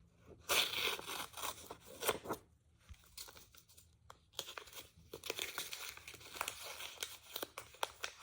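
Paper being crumpled and torn by hand, a dense run of crinkling and crackling with a brief lull in the middle. The paper is being prepared as filling for a paper squishy.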